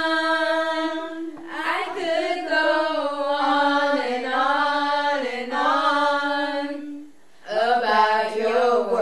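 A woman singing a worship song solo and unaccompanied, drawing out long held and gliding notes, with a short breath break about seven seconds in.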